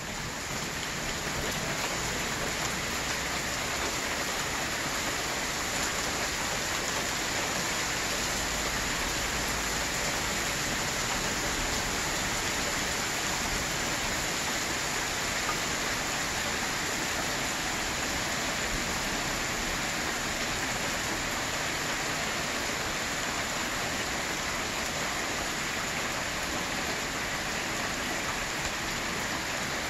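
Heavy rain falling steadily on pavement and parked cars, a constant even hiss with no let-up.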